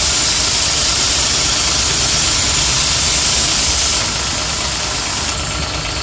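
High-pressure plunger-pump car washer running with its spray gun open, the water jet giving a steady hiss over the pump and motor noise. About four seconds in the hiss drops as the jet is shut off, leaving the pump and motor running.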